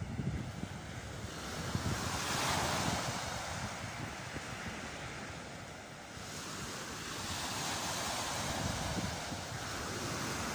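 Small sea waves breaking and washing up a sandy beach, the wash swelling about two seconds in and again about six seconds in, with wind buffeting the microphone.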